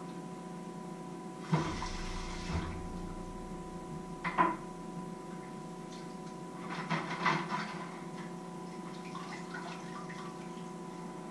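Kitchen tap water running briefly into a sink about a second and a half in, then kitchenware clinking and clattering in the sink twice, over a steady hum.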